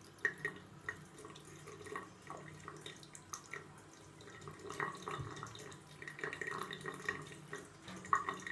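Water splashing and dripping in a basin, with irregular small splashes and drips over a low steady hum.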